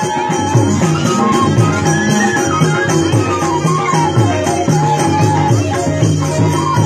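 Loud Nepali folk dance music with a steady, repeating beat and a melody over it.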